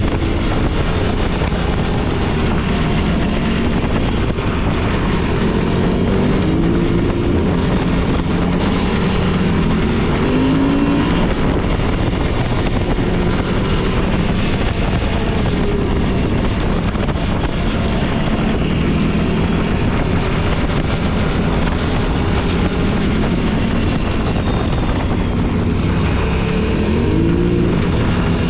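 Off-road vehicle engine running under way on a dirt trail, its revs rising in a few short pulls.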